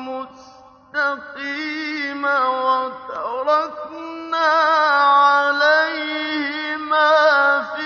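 Male Quran reciter chanting in the slow, melodic mujawwad style: long held notes with ornamented, wavering pitch. A brief pause comes near the start before he resumes.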